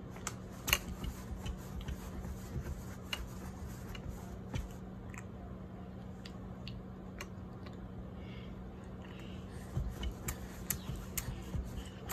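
A baby gumming and sucking on a teether ring: scattered small wet mouth clicks and smacks, a louder one about a second in and a cluster near the end, over a steady low hum.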